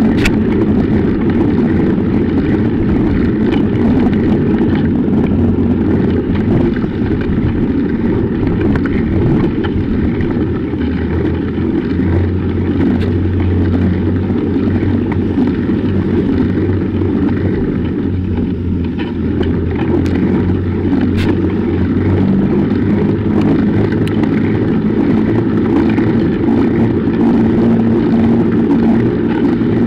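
Steady low rumble of wind buffeting the microphone of a bike-mounted action camera, mixed with tyre noise from a bicycle riding on a snow-covered road.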